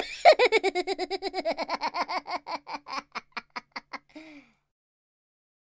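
A person laughing hard: a fast run of "ha-ha" pulses, about six a second, starting high and falling in pitch, then slowing and fading over about four seconds. It ends with a short breath a little after four seconds in.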